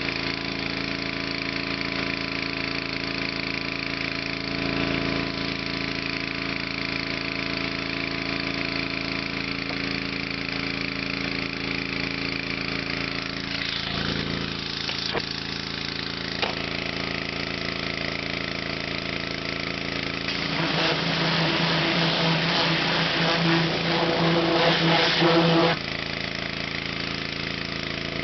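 Pressure washer's 11 hp Honda engine running steadily. About twenty seconds in, the washer gets louder for about five seconds, with a stronger hum and a hiss, then drops back suddenly to the steady running sound.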